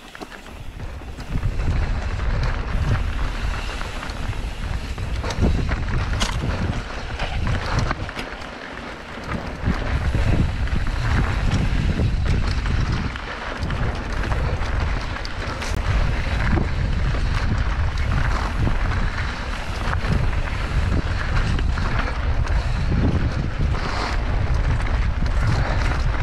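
Mountain bike ridden over a rocky dirt trail: wind rumbling heavily on the microphone, with tyre noise and scattered clicks and clatter from the bike. The rumble builds over the first second or two and eases briefly about eight to nine seconds in.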